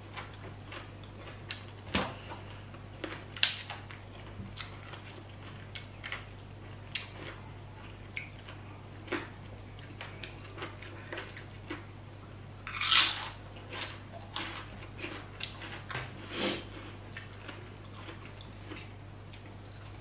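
A person eating green papaya salad and crisp fried pieces by hand, chewing close to the microphone: frequent mouth clicks and chewing with sharper crunches now and then, the loudest a cluster about 13 seconds in. A low steady hum runs underneath.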